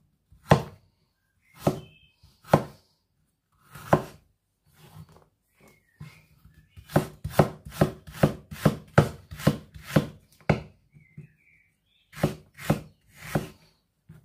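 A knife chopping fresh ginger on a chopping board. A few spaced cuts come first, then a quick even run of about three cuts a second in the middle, then a few more cuts near the end.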